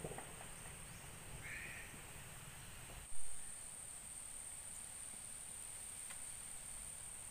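Steady high-pitched insect drone, as of crickets or cicadas. A short chirp comes about one and a half seconds in, and a brief dull thump about three seconds in.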